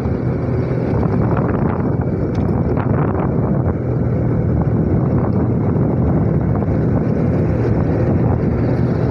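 Motorcycle riding along with wind rushing over the microphone: a steady low engine hum under dense, even wind noise.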